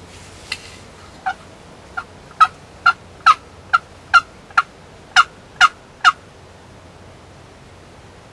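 A run of about a dozen short turkey yelps, one roughly every half second, growing louder over the first few and stopping about six seconds in.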